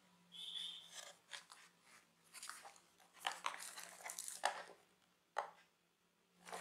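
Crinkling of a phone's plastic wrapper and rustling of its cardboard box as they are handled, in faint irregular crackles with a few sharp clicks.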